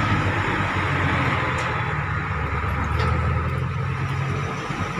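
An engine running steadily with a low even hum, and a couple of faint clicks about a second and a half and three seconds in.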